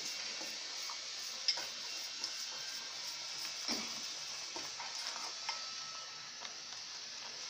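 Oats cooking in water in a steel pot, giving a steady hiss, while a spoon stirs them and clicks and scrapes against the pot now and then.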